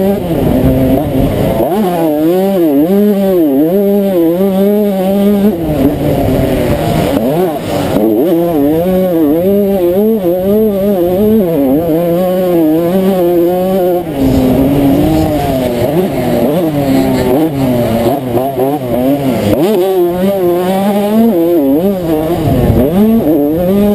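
1992 Honda CR125's single-cylinder two-stroke engine revving hard under race load, its pitch climbing and falling again and again as the rider accelerates, shifts and backs off, with brief throttle cuts about eight and fourteen seconds in.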